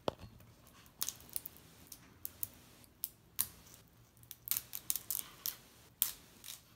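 Plastic toy packaging being unwrapped by hand: irregular sharp crackles and clicks of stiff plastic wrapper.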